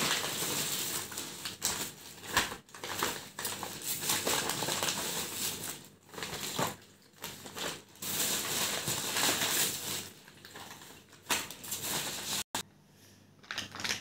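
Plastic fish bags and packaging crinkling and rustling as they are handled, in uneven bursts with short pauses.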